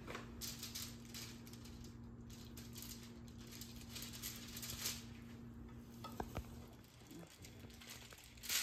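Plastic crinkling and rustling in quick bursts as a hand goes into a plastic bag of shredded mozzarella and a filled chicken cutlet is rolled up by hand on a plastic-covered table, with one short louder rustle near the end. A faint steady hum sits underneath.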